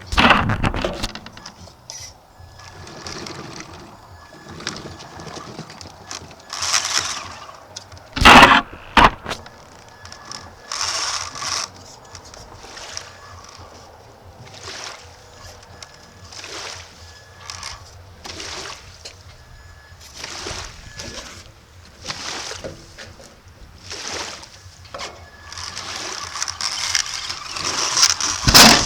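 Water splashing and churning in surges as a homemade RC boat, a Traxxas E-revo in a Lego box hull, moves through the water, with two loud sharp knocks about eight and nine seconds in.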